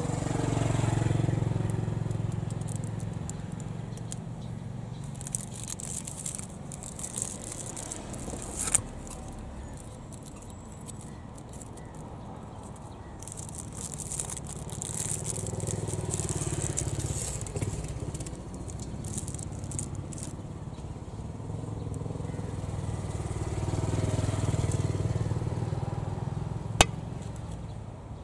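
Street traffic with motor vehicles, motorcycles among them, passing in slow swells that rise and fade. Patches of crackling come and go, and a few sharp clicks cut through.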